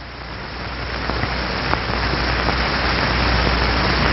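Water splashing and swirling as an oar blade is pulled flat through it: a rushing, crackling hiss that swells steadily louder.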